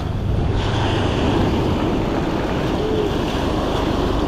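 Surf washing in and out over the sand at the water's edge, with wind rumbling on the microphone.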